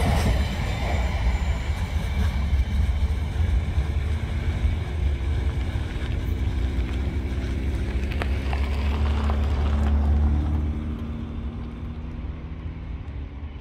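Freight train's last wagons rolling past and the train moving away, a low rumble with a faint distant drone that fades after about ten seconds.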